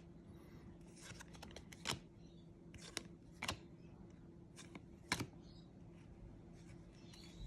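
Faint scattered clicks and crinkles of trading cards and a foil card-pack wrapper being handled, over a low steady hum.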